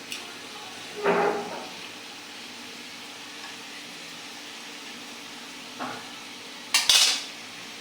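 Chopped onions sizzling steadily in hot oil in a karai. A utensil clatters against the pan about a second in and, louder, near the end.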